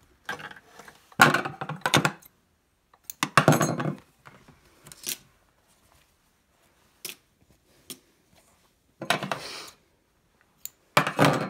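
Short bursts of fabric rustling and small metal clinks as a sewn piece of cotton fabric is pulled from a sewing machine and its threads are snipped with scissors.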